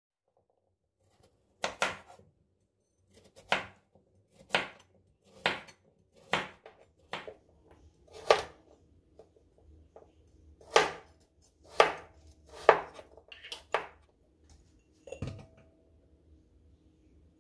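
Kitchen knife chopping on a cutting board: about a dozen slow, separate cuts, roughly one a second, ending with a duller thump near the end.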